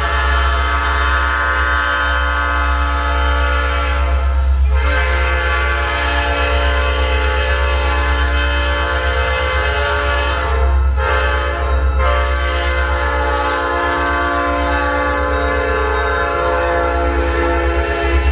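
Illinois Central SD70 diesel locomotive's multi-chime air horn blowing the grade-crossing pattern as the train approaches and passes: two long blasts, a short one, then a final long blast. A deep rumble runs underneath.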